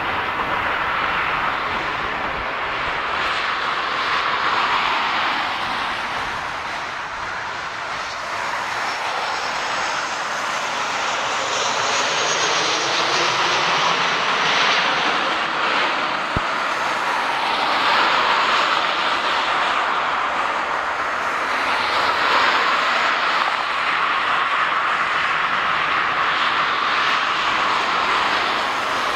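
Gulfstream G550's twin Rolls-Royce BR710 turbofans running at taxi power: a steady jet whine over a rushing hiss, dipping a little and then swelling again.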